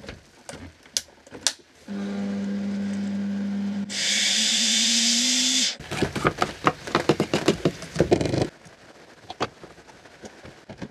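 A Ninja blender's single-serve cup grinds tomatoes with fried cumin seeds and ground pepper into a purée. The motor runs with a steady hum for about two seconds, then grows louder and noisier, its pitch creeping up slightly, and stops suddenly. About two and a half seconds of clattering and rattling follow.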